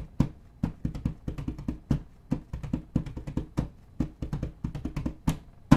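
Intro music made of a fast percussion beat: a steady run of sharp drum hits, several a second, ending on a loudest final hit near the end.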